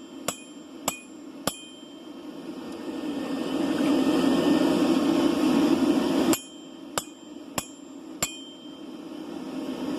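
Hammer blows on an anvil: three evenly spaced ringing strikes about 0.6 s apart, then after a pause of about four seconds, four more at the same pace. A steady low rushing noise fills the pause between the two sets.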